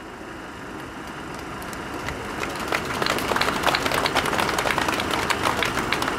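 Crowd applauding: scattered claps that swell into denser, steady clapping about two to three seconds in.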